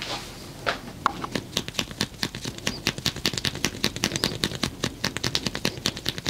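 Hands striking the body in fast percussive massage strokes, a rapid even patter of slaps at about eight a second. It starts about a second and a half in, after a few scattered single taps.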